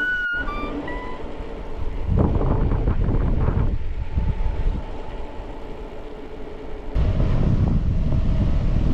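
Wind rumbling on the microphone with road noise. It comes in a spell about two seconds in, eases off, and returns steadily from about seven seconds.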